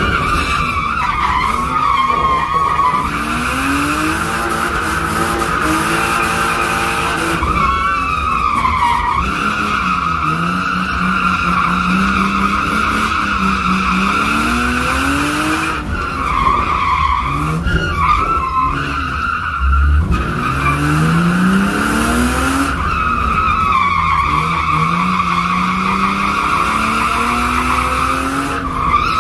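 Car drifting, its tyres squealing almost without a break while the engine's revs climb and drop again and again. Heard from inside the cabin.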